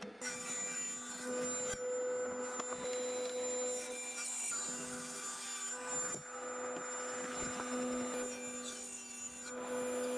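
Table saw running and cutting 18 mm MDF panels, a steady motor hum with the noise of the blade through the board, dipping and picking up again a few times as the pieces are fed through.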